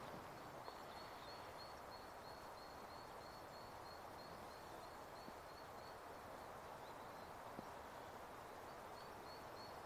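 Quiet outdoor ambience with a faint, high call repeated about four times a second, pausing briefly near the end.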